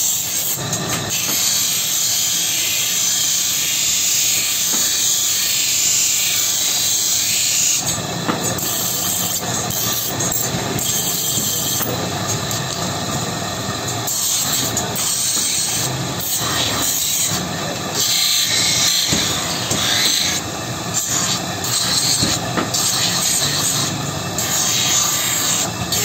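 Belt-driven grinding wheel grinding a steel knife blank cut from an old band saw blade, a steady grinding hiss. From about eight seconds in it comes and goes as the piece is pressed to the wheel and lifted off.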